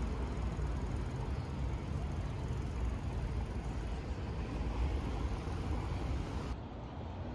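Road traffic on a busy city avenue: a steady rumble and hiss of cars, vans and a coach passing. About six and a half seconds in, it cuts abruptly to a duller, quieter street hum.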